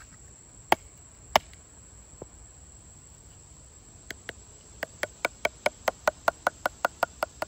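A wooden baton strikes the spine of a Condor Swamp Romper knife that is wedged in a maple log. There are a few separate knocks, then from about five seconds in a quick run of around fifteen light taps, roughly five a second, each with a slight ring. The light taps even out the knife, which went crooked after hitting a knot in the hard wood.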